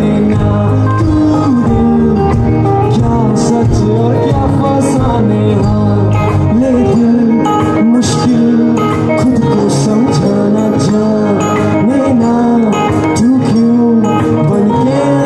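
A live rock band playing: a male lead vocal over acoustic guitar, electric bass, electric guitar and drums, loud through the stage PA.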